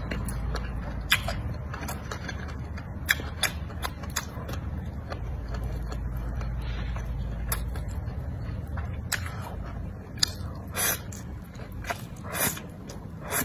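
Close-miked eating of wide flat noodles: wet chewing and mouth clicks scattered throughout, with two short slurps of noodles near the end. A steady low hum runs underneath.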